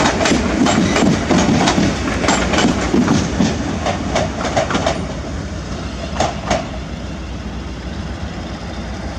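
Class 350 electric multiple unit moving away, its wheels clicking over rail joints about three times a second over a steady rumble. The clicks thin out after about five seconds, with two louder ones about six seconds in, and then the rumble fades to a steadier, quieter level as the train recedes.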